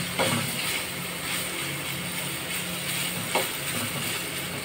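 Spiced chicken pieces sizzling in a frying pan over a gas flame while a spatula stirs them, scraping against the pan, with a sharper scrape or knock about three seconds in.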